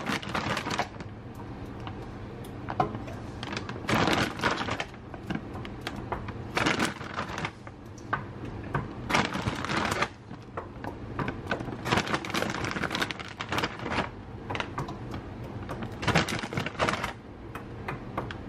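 Frozen meatballs dropped by hand, a few at a time, into a stainless steel pot of pasta sauce, making irregular clicks and knocks throughout.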